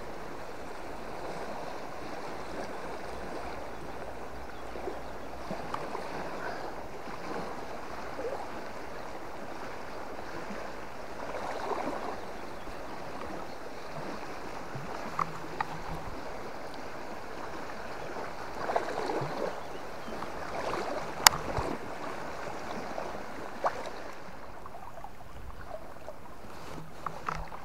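River water running steadily around a wading angler, with the swish and slosh of his legs moving through it now and then, and a single sharp knock about three-quarters of the way through.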